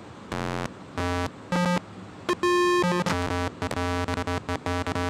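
Homemade CMOS divide-down keyboard sounding square-wave notes as its keys are tried one after another: a few separate tones at different pitches, then a quick, uneven run of short stuttering notes from about three seconds in. The playing is sketchy, but every note sounds: all the oscillators and dividers are working.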